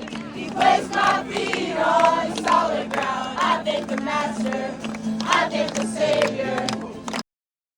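A group of people singing a worship song together in unison. The singing cuts off abruptly about seven seconds in.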